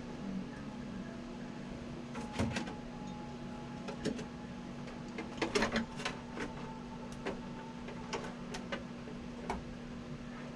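Irregular clicks and light knocks from hands handling a radio-controlled model truck and its plastic parts, with the clearest cluster about halfway through, over a steady low hum.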